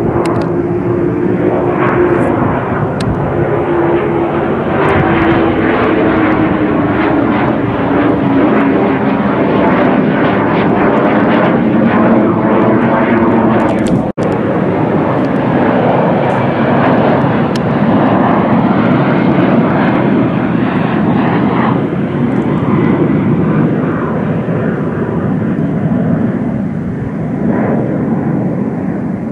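Jet aircraft flying low overhead, a large twin-engine jet transport with two T-4 trainer jets, as a loud steady engine roar. Its pitch glides down over the first few seconds as it passes. The roar drops out for an instant about fourteen seconds in and comes straight back.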